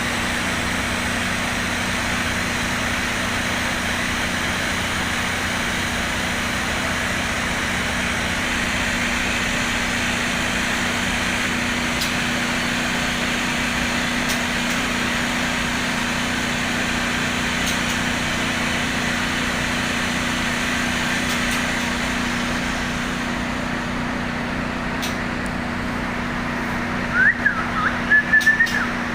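A 2 PK air conditioner running with a steady hum. Near the end a songbird gives a few short, loud whistled notes.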